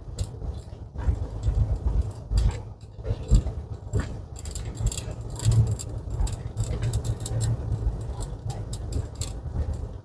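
Car rolling slowly along, a low, steady rumble with frequent light rattles and knocks.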